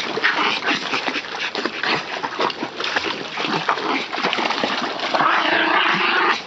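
Water splashing and churning as a Jack Russell terrier in a life vest paddles around an inflatable backyard pool.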